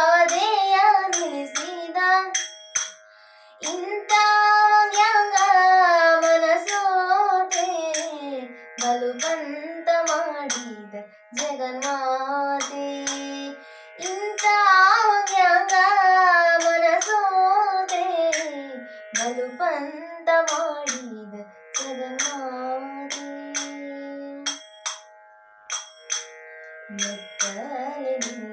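Woman singing a Kannada devotional song in Carnatic style, long ornamented phrases over a steady drone, with small hand cymbals (taala) chiming a regular beat. The voice pauses briefly twice, leaving the drone and the cymbal strokes.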